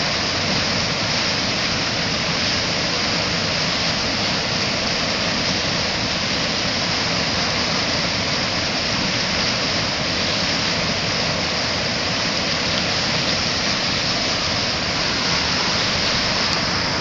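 A river in flood pouring over a dam and rushing through white-water rapids, a steady, loud rush of water.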